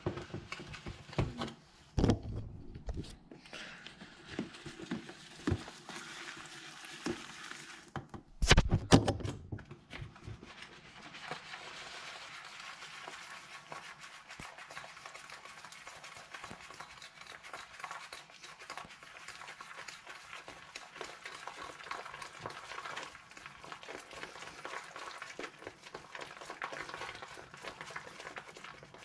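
Oats, protein powder, milk, chia seeds and yogurt being stirred together in a plastic tub. A steady run of soft scraping and clicking, with a few louder knocks in the first ten seconds.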